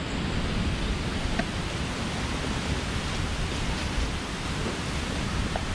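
Steady wind noise with low rumbling buffets on the microphone, an even hiss with no let-up.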